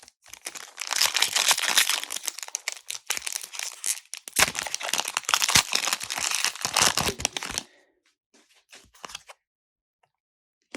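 Foil wrapper of a Pokémon booster pack crinkling and tearing as it is opened, in two long stretches of crackling, then a few faint ticks.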